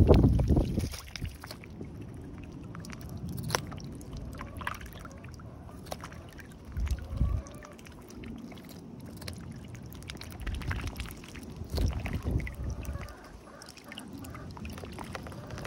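Call ducks dabbling their bills in shallow pool water while feeding on floating cabbage leaves: small splashes, slurps and scattered bill clicks. A few low rumbles come and go, the loudest right at the start.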